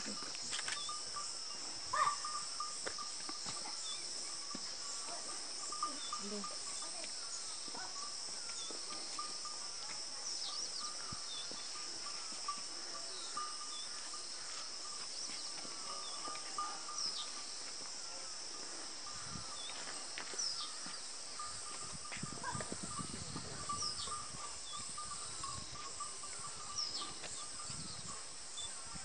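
Outdoor dawn ambience: a steady high chirring of insects with a pulsing mid-pitched trill, and short falling bird chirps every few seconds. A low rumble comes in during the last third.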